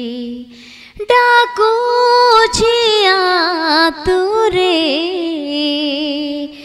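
A woman singing an Odia devotional hymn over musical accompaniment, with long, wavering held notes. The singing drops away briefly about half a second in, then resumes.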